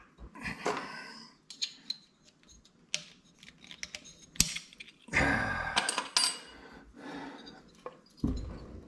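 Metal clicks, clinks and scraping as a push rod tube is worked out of a 2005 Harley-Davidson Twin Cam engine, with a sharp click about four seconds in and a longer clattering scrape a second later.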